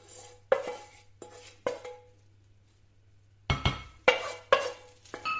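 A wooden spoon knocking and scraping against a frying pan and a ceramic bowl as cooked beef mince is scraped from the pan into the bowl. There are a few sharp knocks, each with a short ringing, then a pause, then a burst of louder knocks and a thud near the end.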